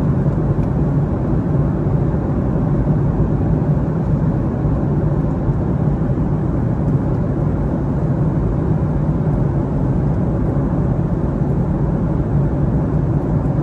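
Steady cabin noise inside a Boeing 737 MAX 8: an even, low rumble of its CFM LEAP-1B engines and rushing air, unchanging throughout.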